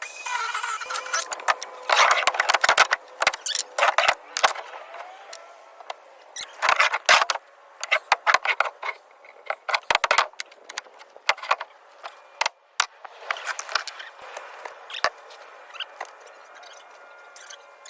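Irregular bursts of rattling clicks and knocks from hands-on work framing a wooden shed wall.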